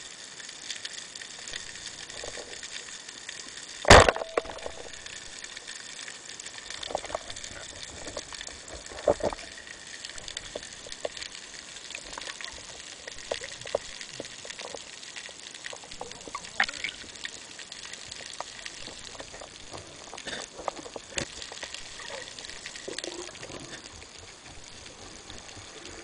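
Underwater sound: a steady hiss of water, broken about four seconds in by one loud sharp crack with a short metallic ring, the speargun firing. Scattered weaker clicks and knocks follow.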